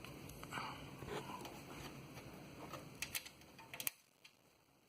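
Faint handling noise: soft rustling with a few light clicks and taps about three seconds in, then it cuts to near silence near the end.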